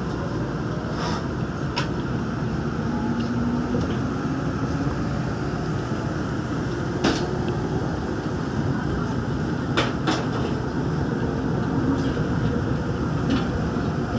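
Daegu Metro Line 3 rubber-tyred straddle-beam monorail car running, heard from inside the carriage: a steady rumble with a faint motor tone that rises in pitch as it picks up speed leaving a station, and a few sharp clicks and knocks from the car.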